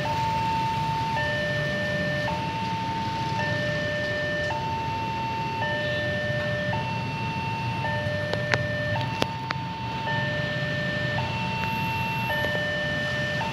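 Railway level-crossing warning alarm sounding a steady two-note electronic hi-lo tone, each note about a second long, warning of an approaching train. Under it runs a steady low traffic rumble, and a couple of sharp clicks come midway.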